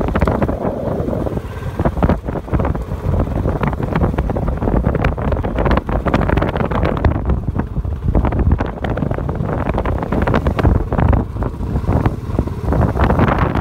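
Wind buffeting the microphone of a moving Royal Enfield Bullet motorcycle, the bike running underneath the gusts.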